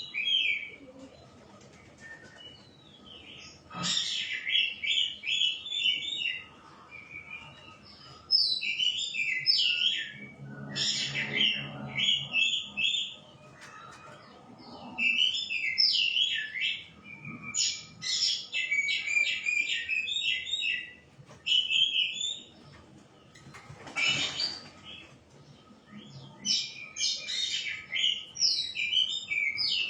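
Shama singing in bursts of rapid, varied whistled phrases, with short pauses between the bursts.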